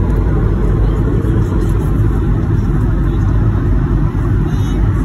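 Steady cabin noise of a jet airliner climbing after takeoff: a deep rumble and rushing roar from the turbofan engines and airflow, heard inside the cabin at a window seat beside the engine.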